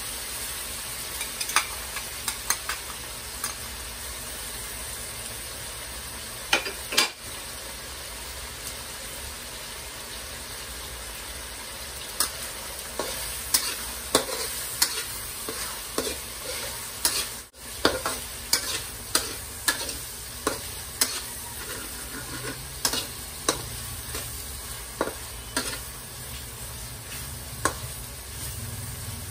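Sliced hot dogs and corned beef sizzling as they fry in a wok, stirred with a spatula that clinks and scrapes against the pan. A few clinks come early, then they come thick and fast in the second half.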